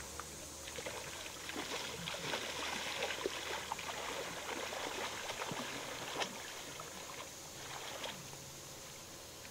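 Faint sloshing and trickling of lake water, with a few small splashes.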